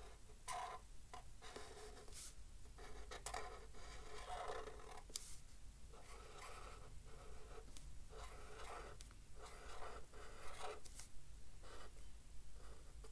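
Felt-tip pen writing on paper: a faint run of short scratchy strokes with brief pauses between letters.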